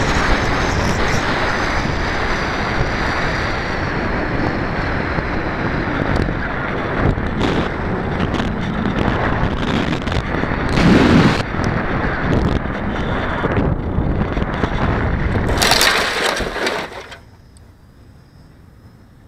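Wind rushing over the microphone of a camera on an RC glider in flight, with gusty swells about 11 and 16 seconds in. The rush cuts off abruptly about 17 seconds in, when the glider comes to rest in tall grass after landing.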